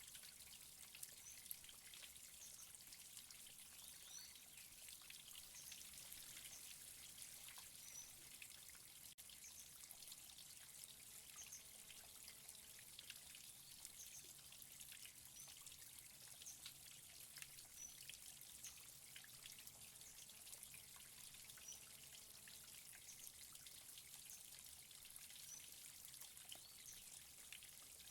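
Waterfall: a faint, steady rush of falling water, mostly high hiss, with scattered short high chirps.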